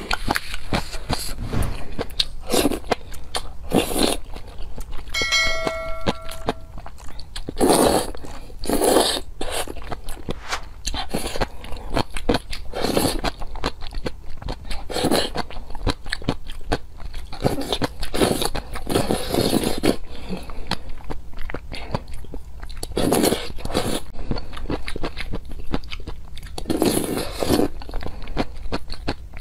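Close-miked eating sounds of noodles in sauce being slurped and chewed: a run of short, wet slurps and mouth noises, one every second or so. A short steady tone sounds about five seconds in.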